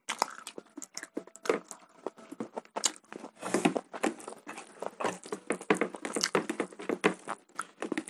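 Eating sounds of two people taking chicken curry and rice by hand: irregular wet chewing and mouth smacks with the squish of fingers working rice and curry, a quick run of small clicks throughout.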